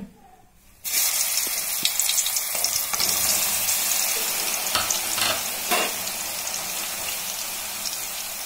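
Soaked soya chunks dropped into hot oil in a deep pan: a loud sizzle starts suddenly about a second in and carries on, easing slightly, with a few louder crackles around the middle.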